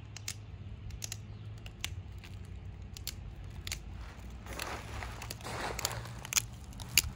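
Pressure flaking a stone flake with a deer antler tip: sharp clicks as small flakes snap off the edge, about seven at irregular intervals, with a scratchy rustle in the middle.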